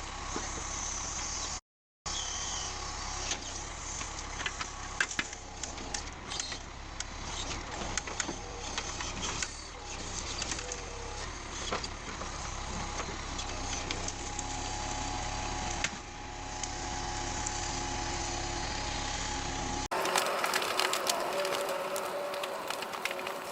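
Heavy forestry machine running steadily, with scattered knocks and clunks as it handles logs. The sound drops out for a moment about two seconds in and changes abruptly near the end.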